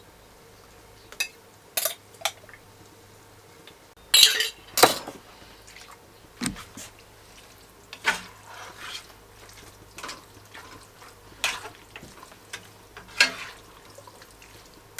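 Kitchen dishes and utensils clink and knock at scattered moments while home-canned tomatoes are measured out for a pot. There is a louder clatter about four to five seconds in.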